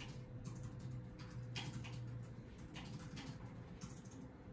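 Manx cat licking and grooming its paw: a string of small, irregular wet clicks.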